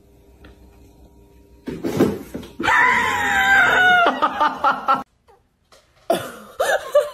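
A person screaming: one long high-pitched scream that starts about two and a half seconds in, falls in pitch, and breaks into short laugh-like pulses at its end.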